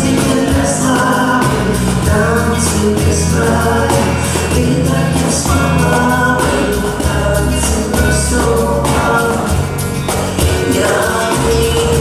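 Pop song with singing over a steady drum beat and bass.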